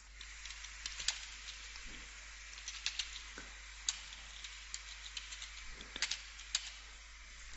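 Computer keyboard keys clicking in short irregular runs as text is typed, over a faint steady hiss.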